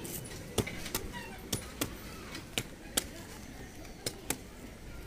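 Heavy curved chopper hacking into palmyra palm fruits: about eight sharp chops at an uneven pace, sometimes two in quick succession.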